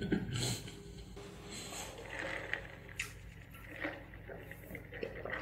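Quiet eating sounds: chewing with a full mouth, then sipping a drink through a straw from a plastic cup. A few faint clicks and knocks are scattered through it.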